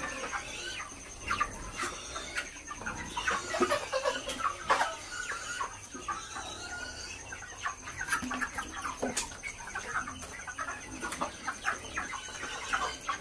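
A flock of broiler chickens clucking and calling, many short overlapping calls at once.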